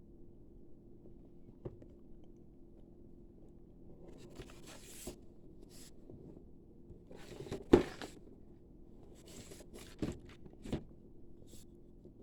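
Plastic action-figure accessories and packaging being handled: scattered rustling and scraping with a few sharp clicks, the loudest a little past halfway.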